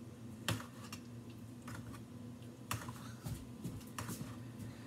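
A spoon clicking lightly against a baking pan about half a dozen times at uneven intervals while chicken is basted with its pan juices.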